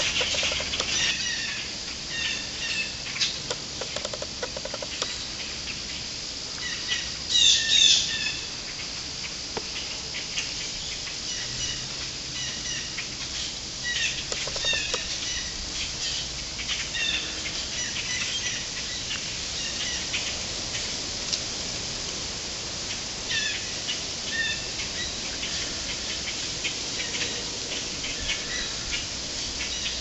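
A large flock of small black birds calling together: a dense chatter of short, overlapping chirps, with a louder burst of calls about seven seconds in.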